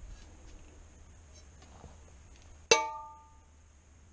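Two tri-ply stainless steel pans knock together once, a metallic clank that rings and fades within about half a second, with faint handling clicks before it.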